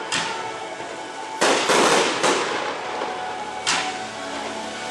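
Fireworks shells bursting in the air in a series of about five sharp bangs, three of them close together in the middle, each dying away in a long echo. Music plays softly underneath.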